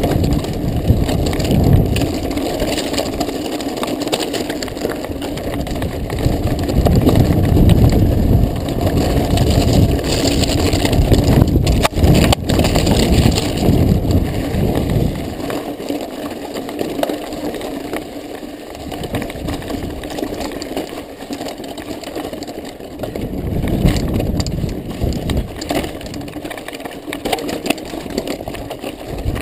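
Mountain bike riding over loose volcanic gravel and lava rock: tyres crunching and the bike rattling, with a couple of sharp knocks about twelve seconds in. Gusts of wind rumble on the handlebar camera's microphone.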